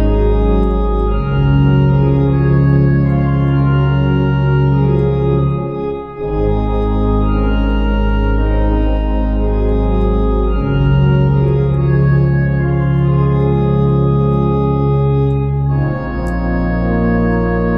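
Virtual pipe organ with Aeolian-Skinner pipe samples playing a Christmas hymn in sustained chords over deep held pedal notes, with a brief break between phrases about six seconds in.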